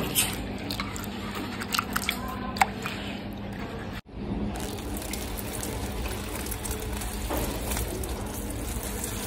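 Hands swishing soaked split moong dal in a steel bowl of water, with small splashes and clicks. About four seconds in, the sound cuts to a steady hiss.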